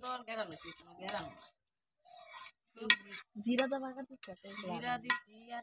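Metal spatula scraping and clinking against a wok while vegetables are stirred, with a sharp clink about three seconds in. A person's voice is heard alongside.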